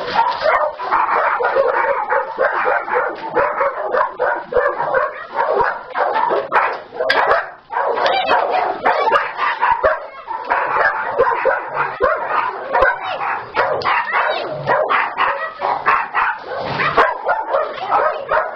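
Several small dogs barking and yipping over one another, without a break.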